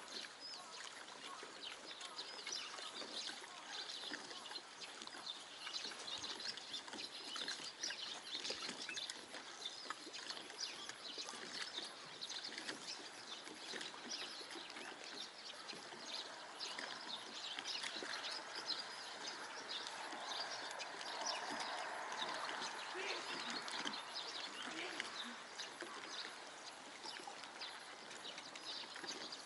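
Small waves lapping against a concrete lakeshore wall: a continuous, fairly quiet patter of small splashes and clicks, a little fuller about two-thirds of the way through.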